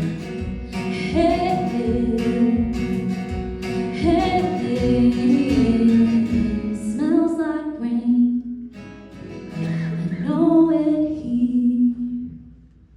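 Song ending: a woman singing wordless held notes over strummed acoustic guitar, fading out about twelve seconds in.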